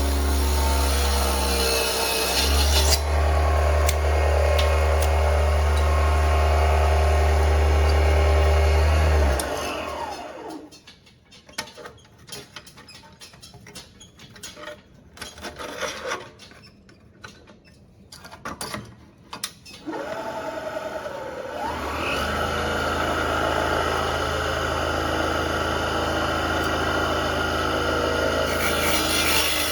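Mini bench table saw's small electric motor running steadily, then switched off and winding down. A stretch of light clicks and knocks follows, then the motor spins up again about twenty seconds in and runs steadily.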